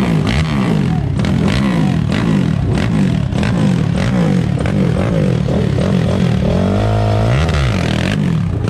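Honda TRX 450R quad's single-cylinder four-stroke engine revved in quick repeated throttle blips, about two to three a second, with one longer held rev about seven seconds in.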